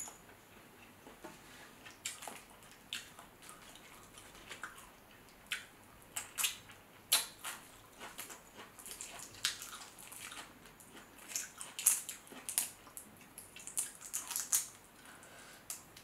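Boiled shrimp peeled by hand: irregular crackles and wet clicks of shell coming away, mixed with chewing and wet mouth sounds.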